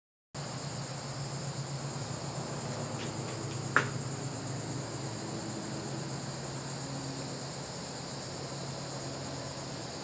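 Steady chorus of insects chirring high and continuously over a low background hum, with one sharp click about four seconds in.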